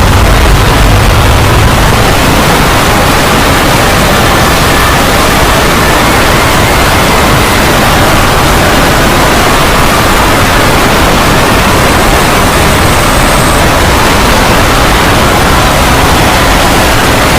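Loud, steady rushing noise from a film soundtrack, unbroken and without speech.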